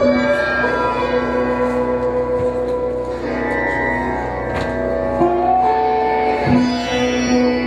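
Instrumental music: a melody of long held notes over a steady low drone, moving to new pitches a few times.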